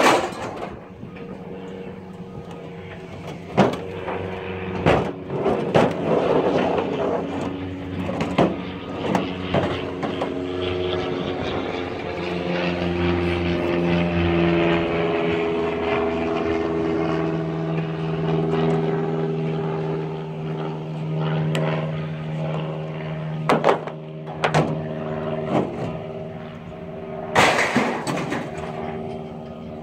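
A heavy machinery engine running in a scrap yard, its pitch rising and falling as it works. Scattered metal clanks come from scrap steel being handled, several near the start and a few more near the end.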